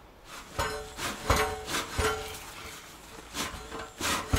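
Irregular metallic clanks and knocks, about six, each ringing briefly: metal tools striking a tractor wheel rim while the tire is worked off with tire irons.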